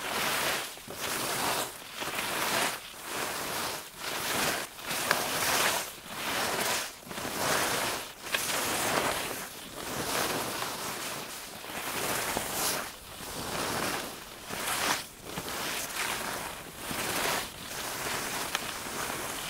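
Skidding scrapes in snow: a run of hissing scrapes, about one a second, each separated by a short dip.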